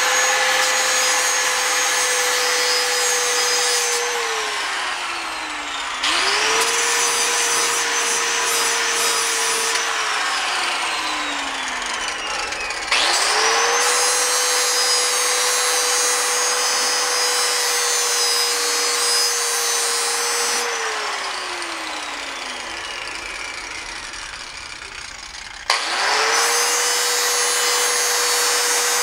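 Angle grinder with a 40-grit flap disc grinding the cutting edge of a steel lawn mower blade in a sharpening touch-up. The motor whines up to speed under a grinding hiss, then is let go and winds down, three times, spinning back up a couple of seconds later each time.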